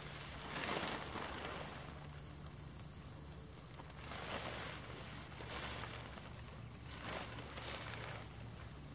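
Steady high-pitched insect trill, with scattered rustles and steps of someone moving about and handling camping gear every second or so.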